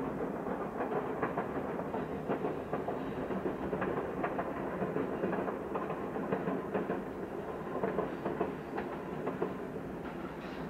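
Passenger train running along the line: a steady rumble with frequent clicks of the wheels over the rail joints, easing off slightly near the end.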